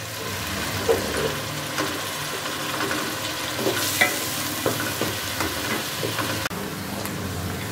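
Chopped onions sizzling as they fry in hot ghee in an aluminium pot, being browned. A wooden spatula stirs them, with short scrapes and taps against the pot now and then over the steady sizzle.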